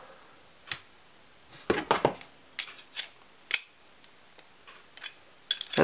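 Steel washers and bolt of a homemade screw bearing press clinking as they are handled and realigned: scattered sharp metal clicks, a small cluster about two seconds in and the sharpest a little after three seconds.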